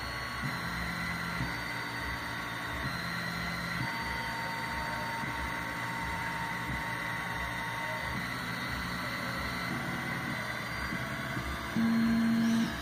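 Stepper motors of a small 3 W laser engraving and cutting machine whining as they drive the laser head, their tone shifting in pitch every second or so as the moves change, over a steady hum. Near the end one louder, steadier tone lasts about a second.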